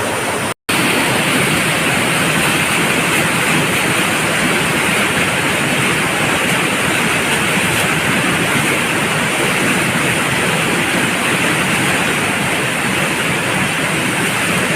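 Waterfall rushing steadily, a loud even roar of falling water, with a brief cut to silence about half a second in.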